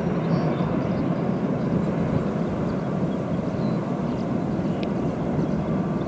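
Twin-engine jet airliner on final approach with its landing gear down, its engines making a steady low rumble. Faint bird chirps come through high above it.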